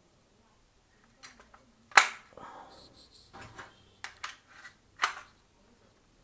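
Batteries being fitted into a plastic toy gun's battery compartment: a handful of sharp plastic clicks, the loudest about two seconds in, with light scraping and handling between them.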